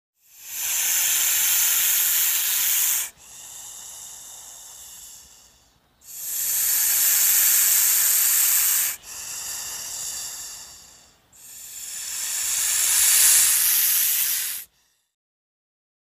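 Viper hissing: three long, loud hisses of about three seconds each. The first two are each followed by a quieter, shorter hiss, and the last builds up gradually before cutting off.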